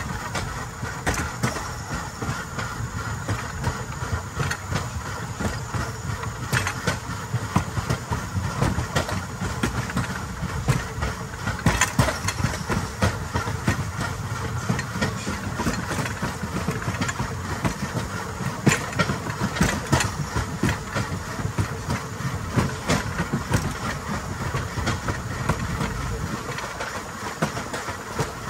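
Rail bike's metal wheels rolling along steel rails: a steady rumble with frequent sharp, irregular clicks and clacks as the wheels run over the rails.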